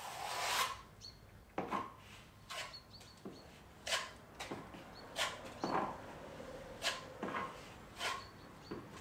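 Plasterer's steel trowel scraping wet plaster along plasterboard joints in repeated short strokes, about one a second, while skimming a second coat over the joint tape.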